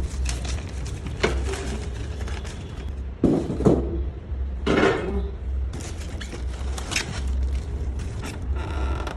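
Metal parts of a grinding mill being handled: a series of knocks, clatters and scrapes at irregular intervals over a low steady rumble.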